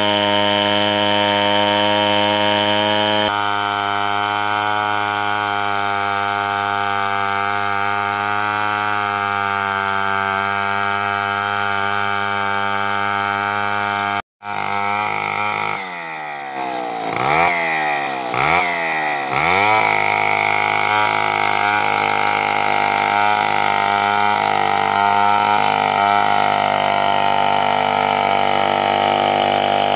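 Large two-stroke chainsaw ripping lengthwise through a coconut log, running steadily under load. About halfway there is a sudden brief gap, then the engine's pitch dips and recovers several times over a few seconds before it settles back into the cut.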